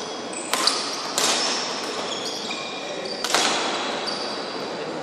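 Badminton rackets striking the shuttlecock during a rally: three sharp cracks, two close together about a second in and a louder one past the three-second mark, each ringing on in the hall's echo. Short high squeaks of shoes on the court floor come between the hits.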